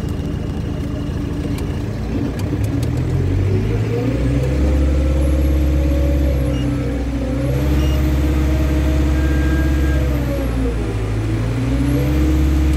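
Diesel engine of a Terex AC100 crane running, its revs rising about four seconds in and held high, dropping briefly near the end before climbing again, as the crane's hook is worked. A thin high whine rises and falls with the engine speed.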